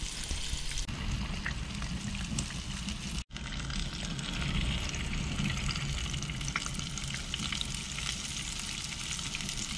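Whole mangrove snapper shallow-frying in hot oil in a frying pan over a gas grill, sizzling and crackling steadily, with a low rumble underneath. The sound cuts out briefly about three seconds in.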